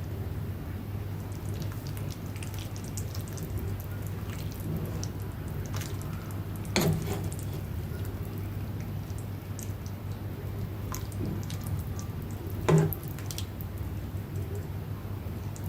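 Small liquid drips and ticks over a steady low hum, with two louder knocks, about seven and thirteen seconds in.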